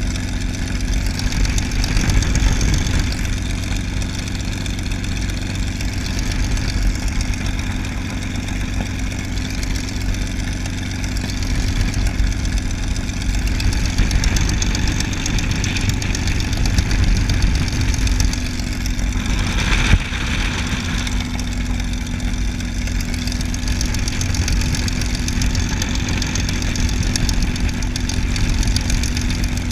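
The P-51D Mustang's Packard Merlin V-12 engine runs at a steady low taxiing power, with the propeller turning. It is heard from the open cockpit as a constant low drone, and it swells briefly about two-thirds of the way through.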